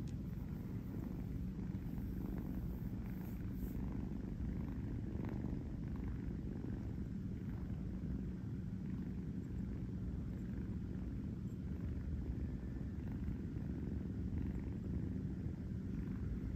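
Young tabby kitten purring steadily.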